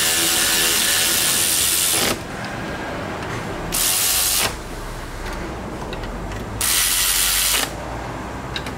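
Cordless electric ratchet running in three bursts, driving in the bottom mounting bolt of a power steering pump: a long run ending about two seconds in, a short one around four seconds and another around seven seconds.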